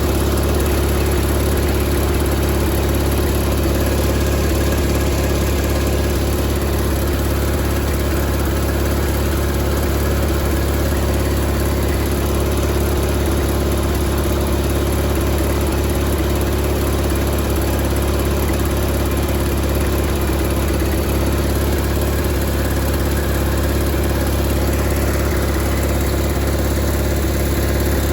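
Onan P218G twin-cylinder engine of a John Deere 318 garden tractor running steadily at an even speed. It has just been rebuilt with new piston rings and is being run in to burn the assembly lube out of it.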